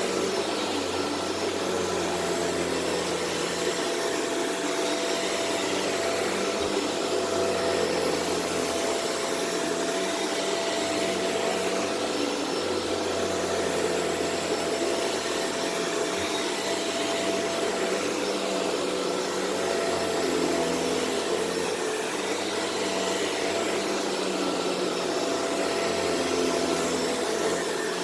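Shark Rotator Powered Lift-Away upright vacuum running on carpet, picking up deodorizing powder. A steady whine, with a low hum that comes and goes every few seconds.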